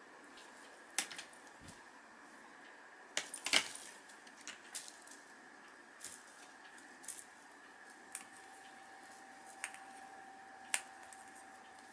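Light clicks and clinks at irregular intervals, about a dozen, as a feather teaser wand knocks a weighted roly-poly cat toy and sets it rocking; the loudest is a short cluster about three and a half seconds in.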